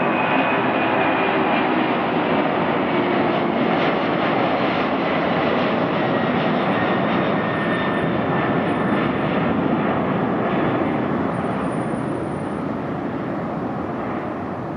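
Boeing 767-300 freighter's twin jet engines at high thrust as it climbs out after takeoff, a loud steady rumble that slowly fades over the last few seconds as the aircraft draws away.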